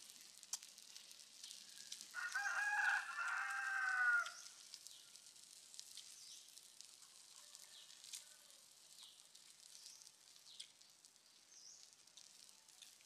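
A rooster crowing once, about two seconds in, one drawn-out call that drops in pitch at its end.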